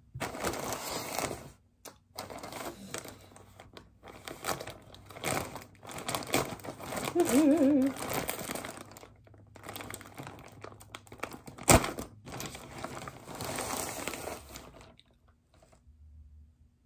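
Packaging crinkling and rustling in spells as a soft mail package is handled and opened, with one sharp click about twelve seconds in; the rustling stops about fifteen seconds in.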